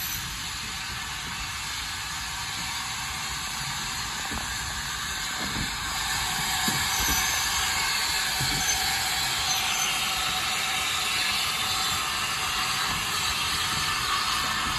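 Small tank steam locomotive hissing steam from its cylinders as it moves slowly past with a carriage, growing louder as it draws near, with a few faint knocks from the wheels and running gear.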